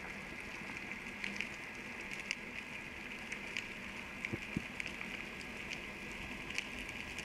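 Underwater ambience: a steady hiss with scattered faint clicks and crackles, and two soft low thumps a little past the middle.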